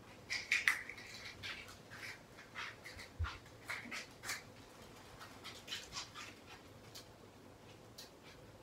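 Matches being struck against a matchbox to light candles: a run of short, sharp scratches over the first four seconds or so, then a few scattered ones.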